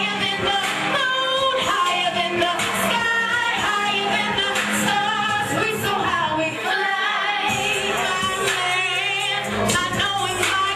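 Music with a sung lead vocal, the voice wavering in vibrato over a full backing track. The bass drops out for about a second past the middle, then comes back.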